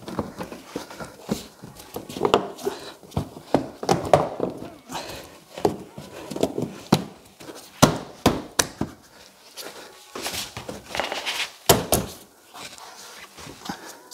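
Plastic front bumper of an SUV being pressed and worked back into place by hand: a scattered run of sharp clicks and knocks as the plastic panel and its trim are pushed home, with rubbing and handling noise in between.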